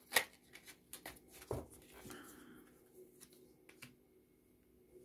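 A deck of fortune-telling cards being shuffled and laid out by hand: a sharp snap just after the start, then quieter flicks, taps and a short rustle of cards that die away after about four seconds.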